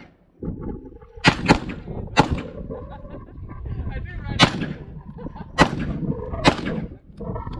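Rifle shots fired one at a time at a slow, deliberate pace: six in all, two in quick succession about a second in, then single shots spaced about one to two seconds apart.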